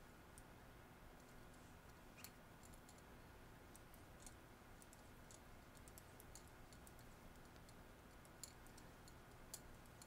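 Faint, irregular clicking of metal double-pointed knitting needles tapping against each other as stitches are knit, with a few sharper clicks standing out.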